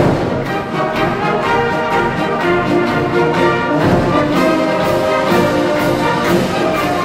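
Youth wind band playing, with brass to the fore: full ensemble of held chords and a steady beat.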